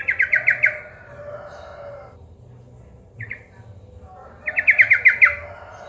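Yellow-vented bulbul (trucukan) calling: two rapid chattering runs of six or seven quick falling notes, about four seconds apart, with a short single call between them.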